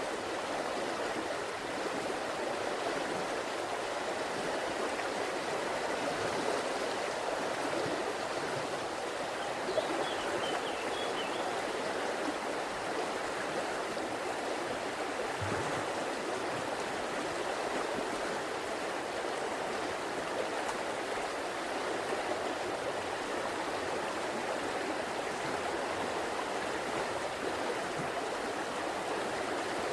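River water flowing steadily, a continuous even rush of water sound.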